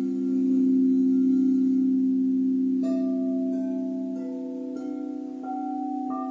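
Crystal bells played as meditative music: a steady drone of several low held tones, joined from about three seconds in by a run of struck higher notes, roughly one every two-thirds of a second, each ringing on and overlapping the last.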